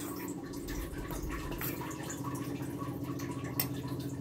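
Steel spoon stirring dry flour in a stainless-steel bowl: scattered light clicks and scrapes of the spoon against the metal, over a steady low hum.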